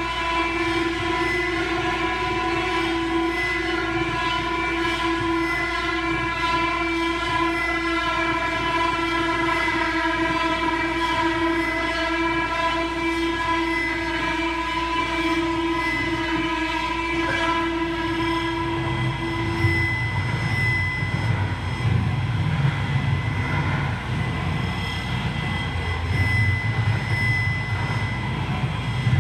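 A sustained drone of several steady tones held together like a chord. About twenty seconds in, the lowest tone stops and a low rumble comes in underneath.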